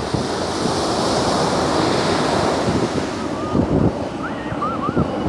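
Atlantic Ocean surf washing in at the shoreline, a steady rushing of breaking waves that swells in the middle, with wind buffeting the microphone.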